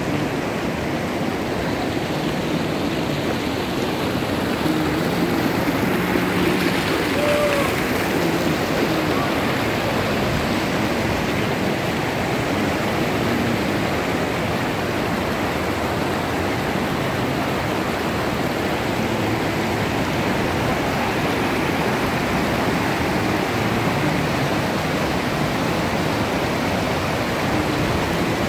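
Mountain stream rushing over boulders and stones, a steady, even rush of water.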